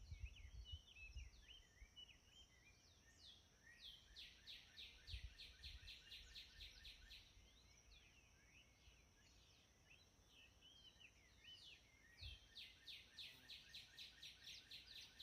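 Faint outdoor birdsong: rapid series of short descending chirps, about four a second, in two bouts, over a steady high whine.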